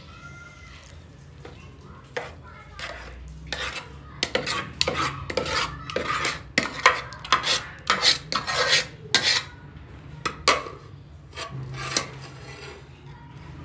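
Metal spoon scraping and knocking against a stainless steel bowl as thick batter is scraped out of it. The scrapes come in a quick, irregular run starting about two seconds in and die down after about ten seconds, with a few more near the end.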